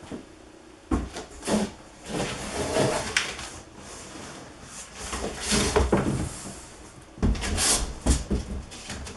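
Handling noise: a series of knocks, thumps and scrapes of equipment being moved about, in three clusters with short lulls between.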